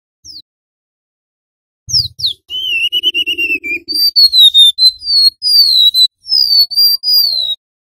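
Golden-bellied gerygone (remetuk laut) singing: one brief high whistle, then about two seconds in a run of thin, high whistled notes, each gliding downward, stopping shortly before the end.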